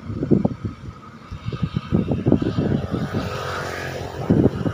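Wind buffeting the microphone: irregular low rumbling gusts, with a brief lighter hiss about three seconds in.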